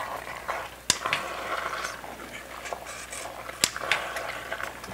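A spoon stirring thick, wet vegetable pot-pie filling in a stainless steel stockpot. The stirring noise is irregular, with two sharp clinks of the spoon against the pot: one about a second in and one past three and a half seconds.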